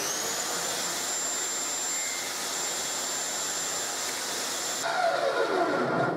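Table saw motor starting up, its whine rising quickly to full speed, then running steadily. About five seconds in it is switched off and the pitch falls as the blade winds down.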